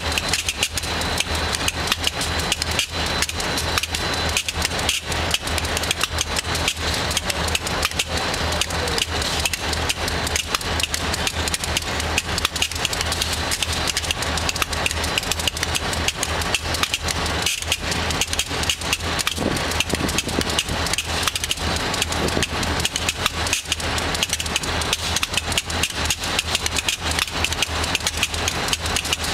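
Diesel-electric freight locomotive idling, a steady low drone with a rough, fast clatter over it.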